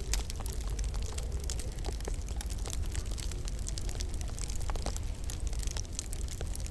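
Wood fire crackling in a log burner: irregular small sharp pops and snaps, several a second, over a low steady rumble.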